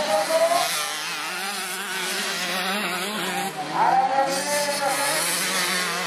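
Several motocross bikes racing on a dirt track, their engine notes rising and falling as the riders rev and shift, with a louder rising rev about four seconds in.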